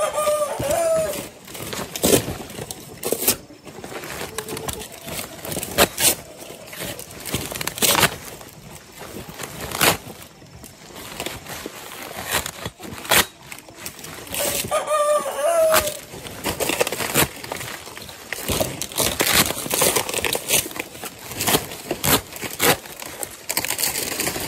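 Young chickens, with a young cockerel giving two short, wavering crows, one near the start and one about fifteen seconds in. Many irregular sharp knocks and clicks run among them.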